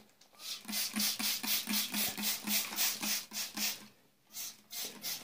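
Hand trigger spray bottle squirting water onto wet toilet paper in a quick, even run of about five squirts a second, each a short hiss. The spraying breaks off briefly about four seconds in, then picks up again.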